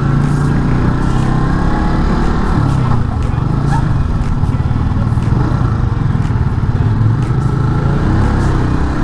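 Motorcycle engine with a racing exhaust running steadily under way, its pitch dipping and rising a little about three seconds in, with wind noise on the microphone.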